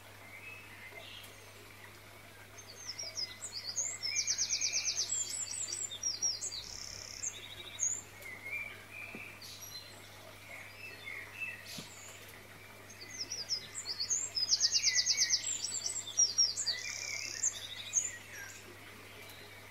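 Birdsong: two long, high-pitched song phrases about ten seconds apart, each with a fast, even trill in the middle, over scattered softer chirps.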